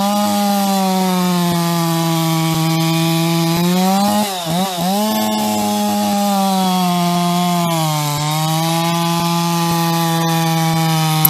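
Performance-modified (Bakerized) Stihl 066 two-stroke chainsaw at full throttle, cutting through a large log. The engine note holds high and steady under load; the pitch dips and recovers briefly about four seconds in, and sags a little near eight seconds before climbing again.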